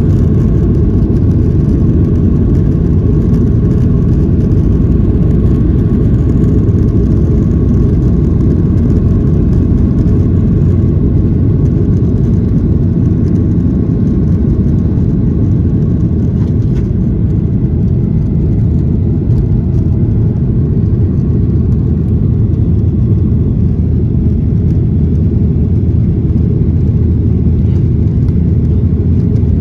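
Steady low rumble of cabin noise inside a Boeing 737-800, from its engines and the air around the fuselage, holding even throughout.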